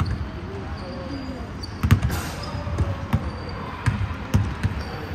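Basketball being dribbled on a hardwood gym floor: irregular, sharp thumps of the ball hitting the boards, most of them from about two seconds in.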